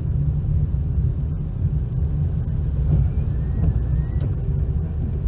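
Car cabin noise while driving slowly on a wet road: a steady low rumble of engine and tyres.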